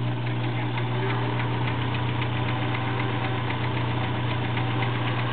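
Vintage Kenmore model 1703 all-metal sewing machine running steadily, stitching through fabric: an even motor hum with fast, regular ticking from the needle mechanism.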